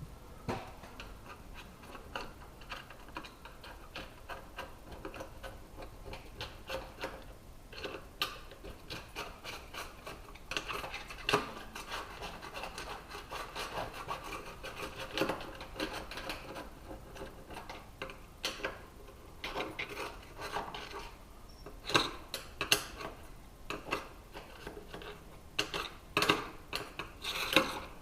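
Hand scraper working old windshield sealant out of the channel around the glass, in many short, irregular scraping strokes, a few louder and sharper near the end.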